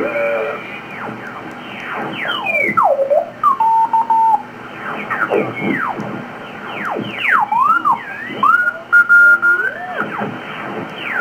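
ICOM IC-7700 HF transceiver's receiver audio while the tuning knob is turned down through the 80-metre band in lower sideband. Whistles and squealing tones slide up and down in pitch as signals pass through tuning, a few held briefly as steady notes, over a steady band hiss.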